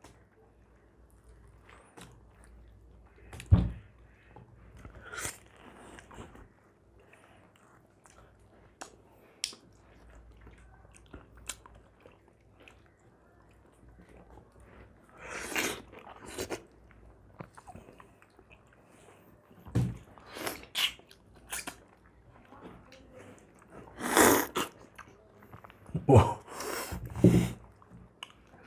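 Several people biting and chewing mangoes, with scattered wet smacks and clicks and a few louder bursts of noise.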